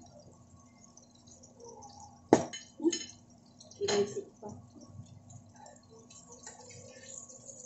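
Metal kitchen tongs and dishes clinking: three sharp clinks about two, three and four seconds in, then a few lighter knocks.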